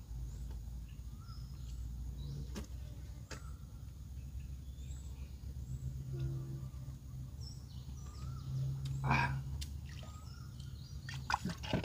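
Outdoor ambience: a steady low rumble with faint bird chirps now and then. Over it come a few soft clicks and mouth noises from a man eating a ripe mango, with a brief louder rustle about nine seconds in.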